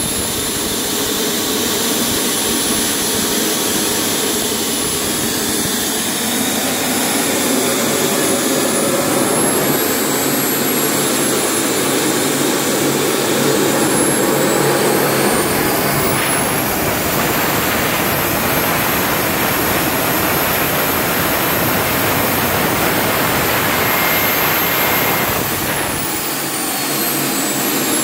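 AMT Pegasus model gas-turbine engine running with a steady rush and a high whine. About halfway through it spools up: the whine climbs and the rush grows louder. It holds there, then spools back down a couple of seconds before the end.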